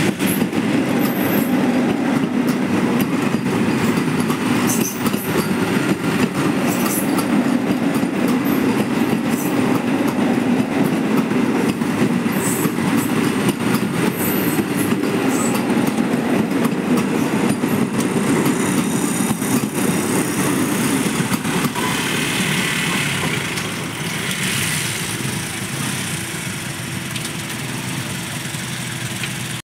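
Vande Bharat Express electric train set running past on the rails, a steady loud rumble of wheels on track with scattered clicks. The rumble drops somewhat about 23 seconds in as the train moves off.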